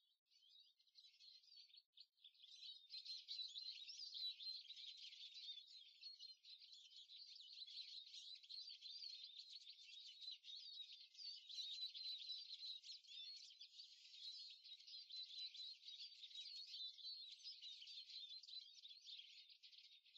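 Faint, dense chorus of small birds chirping and singing, many short quick notes overlapping, thinner for the first couple of seconds and then steady.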